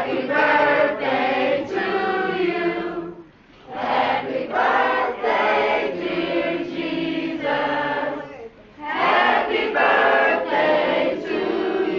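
A small choir of children and adults singing together, in three phrases with short breaks between them.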